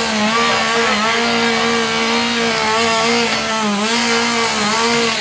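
Two-stroke chainsaw engine held at high revs: a steady high-pitched drone that dips briefly in pitch a few times, then dies away at the very end.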